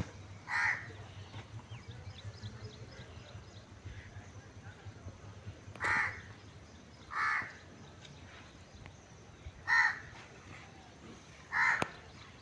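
A bird calling outdoors: five short calls at uneven gaps, a second or several apart.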